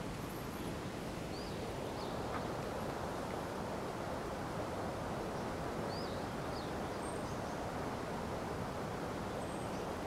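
Steady rush of river water running over a shallow weir, with a few faint, short bird chirps scattered through it.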